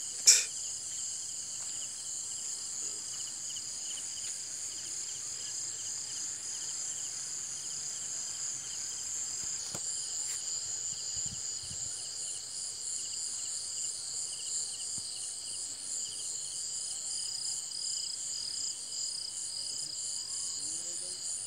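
Chorus of night insects trilling steadily at several high pitches, with a fine pulsing texture. One sharp knock stands out just after the start.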